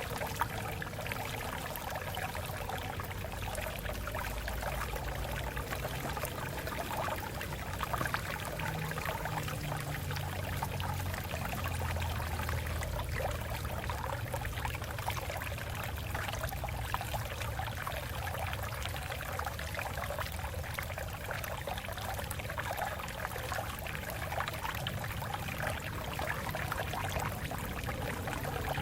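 Stream water flowing and splashing over rocks, a steady babble with a low rumble beneath.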